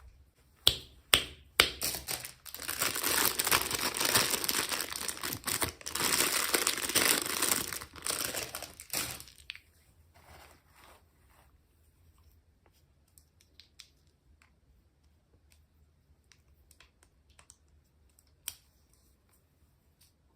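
Packaging being torn open and crinkled, with a few sharp clicks in the first couple of seconds, then a long stretch of dense crackling. It stops about halfway through, leaving a few faint ticks and taps.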